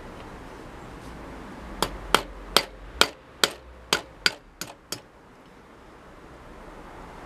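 Small steel-headed hammer tapping on a piece of steel held in a bench vise: about nine sharp taps over three seconds, coming a little quicker toward the end.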